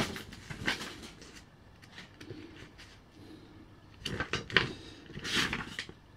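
Hard plastic lawnmower parts being handled and fitted together by hand: a few clicks and knocks at the start, then a cluster of sharp clacks about four seconds in and a short scraping rattle soon after.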